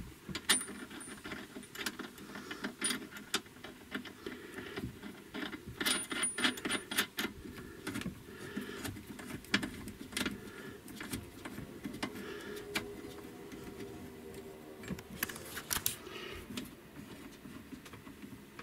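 Small metal clicks and light rattles of a nut and ring-terminal cable lug being handled and threaded onto an inverter's battery terminal stud by hand. The clicks come scattered, with denser clusters about six seconds in and again about fifteen seconds in.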